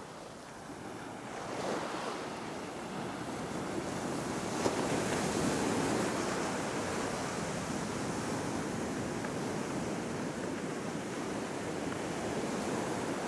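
Ocean surf washing onto a beach: a steady rush of waves that builds about a second and a half in and again around four and a half seconds.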